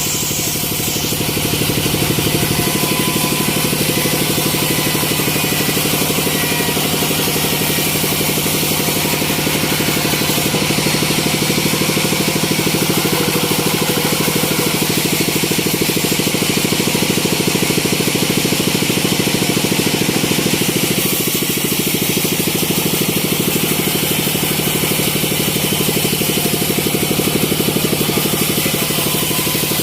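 Sawmill machinery running steadily, with a fast, even pulse like a motor running, a little louder from about two seconds in.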